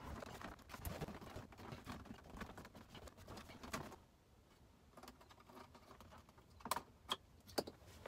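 Small plastic clicks and rattles as a BMW E36 instrument cluster is worked out of the dash and its wiring plugs are unclipped. Three sharp clicks come near the end.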